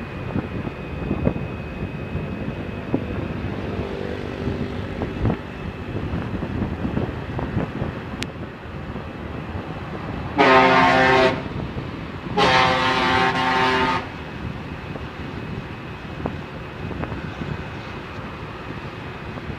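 Steady road and wind noise from riding along a highway in traffic. About ten seconds in, a vehicle horn sounds twice: a short blast, then a longer one of about a second and a half.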